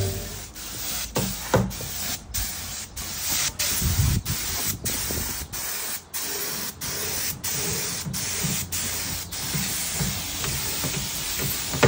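Compressed-air paint spray gun hissing as it sprays white paint onto a cabinet, the hiss broken by short breaks about twice a second.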